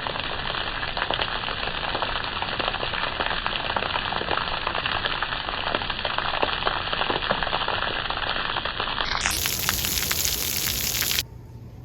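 Heavy rain mixed with small hail pelting down, a dense crackling patter of many small impacts. It stops abruptly near the end.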